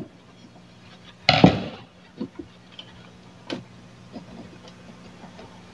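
Small handling clicks and knocks of a TV circuit board being taken apart, with one louder brief scrape or clatter about a second and a half in, over a steady low electrical hum.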